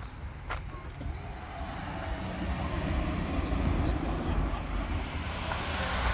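A classic car's engine running as the car rolls slowly past, getting steadily louder from about a second in. There are a couple of sharp crunching steps at the very start.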